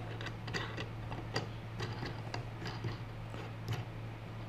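Small, irregular clicks and ticks of a metal nut being turned by hand onto a threaded bolt at the pivot of a wooden lever, over a steady low hum.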